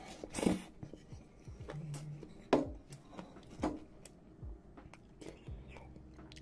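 Close-miked eating sounds: a noisy slurp of noodles from a bowl, then chewing with a few sharp, wet mouth sounds about a second apart.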